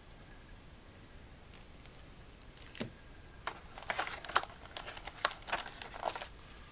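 A quiet stretch, then a single tap a little under 3 s in, followed by a run of sharp clicks and papery rustles as a folded instruction leaflet is pulled out of a stiff plastic packaging tray.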